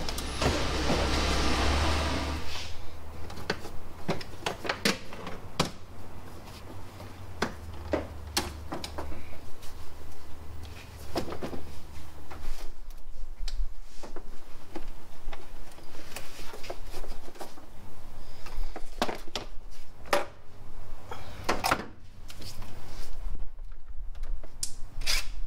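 Scattered sharp clicks and knocks of hand work on the engine, with a short hiss at the start and a low steady hum until about halfway.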